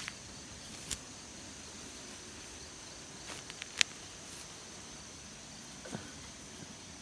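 Insects droning steadily at a high pitch, broken by a few short sharp clicks; the loudest click comes a little under four seconds in.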